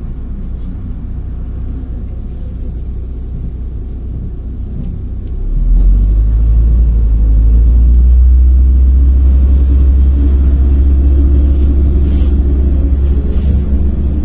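Cabin sound of a MAZ-105 articulated diesel city bus underway: a steady low engine and road rumble. About five seconds in it grows much louder into a deep drone as the engine comes under load.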